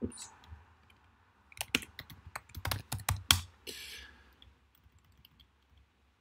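Typing on a computer keyboard: a quick run of keystrokes in the first half, then a few scattered taps.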